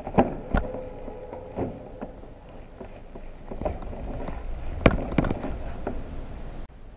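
Hands reconnecting a hose and handling engine-bay parts: a few sharp clicks and knocks, two about half a second apart right at the start and another cluster about five seconds in, with rustling handling in between.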